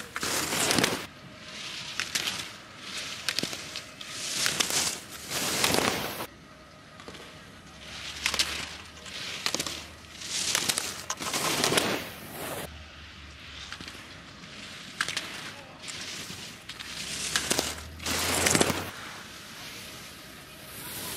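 Ski edges scraping on hard-packed snow through a series of slalom turns: repeated swooshes about one to two seconds apart, with sharp clicks among them.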